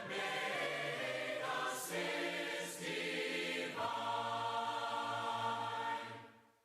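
Mixed voices singing a hymn a cappella in several parts. The last held chord fades out near the end.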